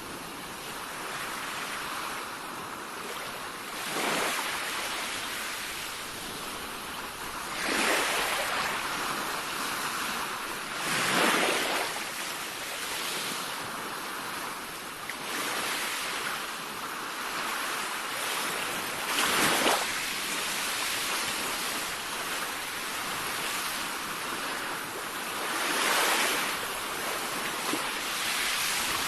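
Sea waves breaking over a continuous wash of surf. Five louder crashes swell up and die away over the stretch.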